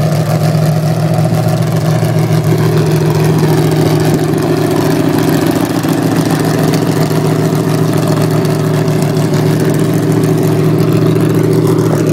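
Engine of an early-1990s GM full-size pickup idling steadily and loudly, with a slight change in tone about two and a half seconds in.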